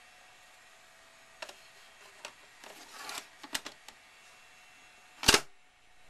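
An 8-track cartridge being slid into the slot of an AKAI GXR-82D 8-track deck. There are a few light plastic clicks and a short scrape, then one loud clunk about five seconds in as the cartridge is pushed home in the player.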